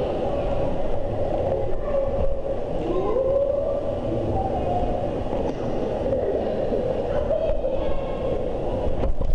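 Indoor swimming pool ambience in a reverberant hall: a steady hum with faint gliding tones drifting through it and water moving around the camera at the surface.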